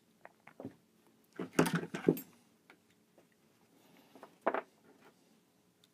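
Light clicks and clatter of Glock slide parts being handled during reassembly, with a louder run of clicks about a second and a half in and another short one about four and a half seconds in.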